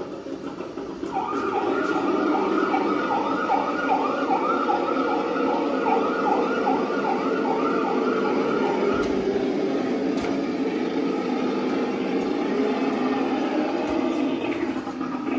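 Traxxas TRX-6 G 63 6x6 RC crawler's electric motor and gearing whining steadily as it crawls over the course, picking up about a second in. From about a second in until about nine seconds, a rapidly repeating two-pitch warble, about two and a half pulses a second, sits above it.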